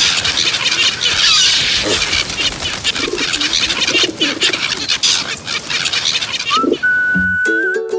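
A flock of pigeons cooing over a dense rustling, flapping noise. About six and a half seconds in, a whistled tune with ukulele starts up.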